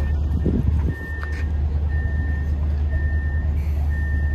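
Steady low hum of a standing diesel-hauled passenger train, with a single high electronic beep repeating about once a second.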